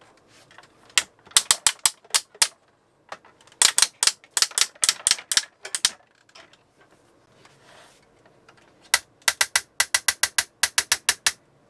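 Plastic parts of a large Transformers Unicron toy figure clicking as they are moved: three bursts of rapid, sharp clicks, the last a run of about a dozen evenly spaced clicks.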